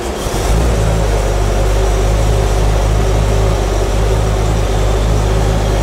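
Cadillac Eldorado convertible's engine running at a low, steady idle as the car creeps forward, a deep even hum with no revving.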